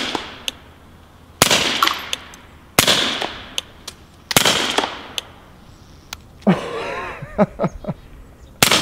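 Suppressed VZ 61 Skorpion in .380 fired semi-automatically: a shot at the opening, three more about every one and a half seconds, then a longer pause and one more shot near the end. Faint clinks between the shots from ejected cases hitting the shooter.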